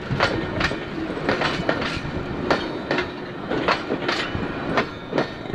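Freight train wagons rolling slowly past at about 13 km/h, their wheels clacking over rail joints: sharp irregular clicks, roughly two a second, over a steady rolling rumble.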